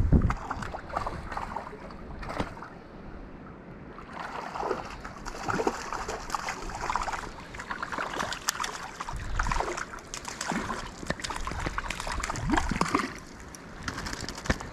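Irregular splashing and sloshing of creek water as a hooked trout thrashes at the surface while it is fought and netted.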